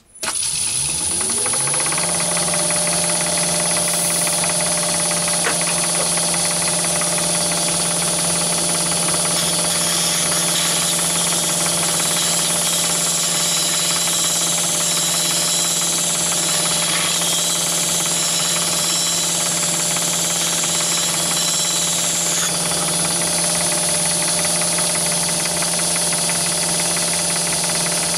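Myford ML7 lathe comes up to speed in the first two seconds, then runs steadily with a diamond cup lapping wheel spinning in the chuck. From about ten seconds in until about twenty-two seconds, a higher grinding hiss is added as a brazed carbide-tipped lathe tool is held against the face of the wheel and lapped.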